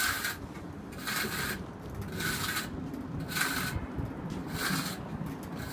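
Hand trowel scraping over mortar on a brownstone stoop's stone arch, about five short strokes roughly one a second.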